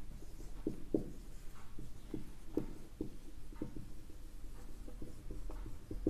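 Handwriting: a pen or marker making short scratching strokes at an irregular pace, faint.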